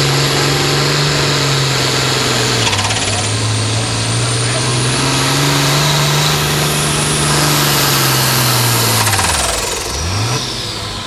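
Diesel hot farm tractor engine running flat out under load as it pulls the sled, with a high whine rising and falling over it. Near the end the engine pitch drops steeply as the pull ends, then briefly picks up again.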